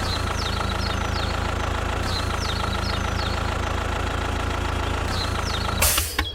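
Engine idling with a steady, even low hum. Small groups of high, quick descending chirps recur every couple of seconds. A brief hiss near the end, then the sound cuts off.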